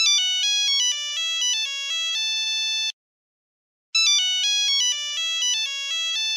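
A short, bright electronic ringtone-style tune, quick stepping notes that settle on a held note, played twice with about a second of silence between.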